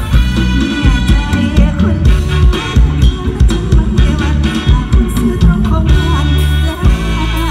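Live band music played loud over a stage sound system: a drum kit beat under amplified instruments, with singing over it.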